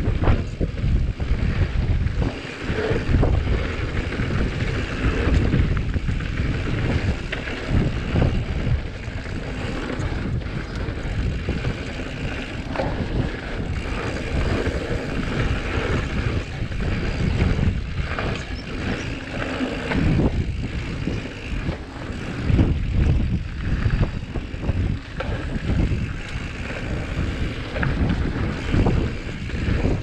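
Wind buffeting a GoPro Hero7 Black's microphone on a descending mountain bike, with the tyres crunching over a loose dirt and gravel trail and frequent knocks and rattles from the bike hitting bumps.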